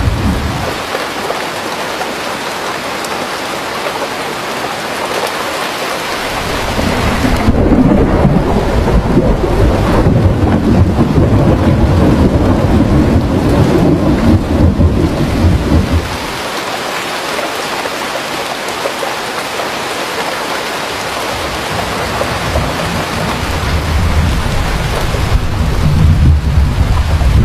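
Steady rain falling in a thunderstorm, with long rolls of low thunder: one rumble swells about seven seconds in and dies away around sixteen seconds, and another builds near the end.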